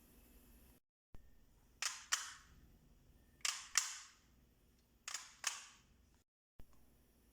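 Sharp cracks in three pairs, the two in each pair about a third of a second apart and the pairs about a second and a half apart, each with a short ringing tail.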